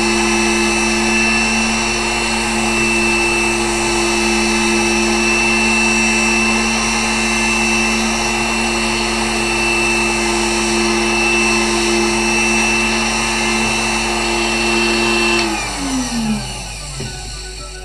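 Spindle motor of a pantograph engraving machine running at a steady speed with a constant whine. About fifteen seconds in it is switched off and spins down, its pitch falling as it fades.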